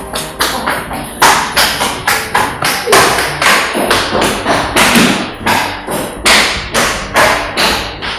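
Hurried footsteps on a tiled floor and stairs, about three a second, each a sharp knock with a little echo; they stop near the end.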